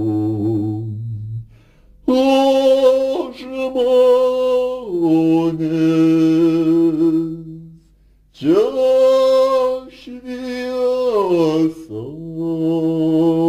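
Slow Lithuanian hymn sung in long, drawn-out notes. A brief pause comes about two seconds in and another near eight seconds, and a note scoops up in pitch after each pause.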